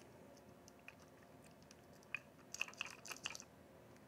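Faint small metallic clicks and clinks of copper terminal lugs being set onto a compressor's terminal studs, with a quick flurry of them a little past halfway.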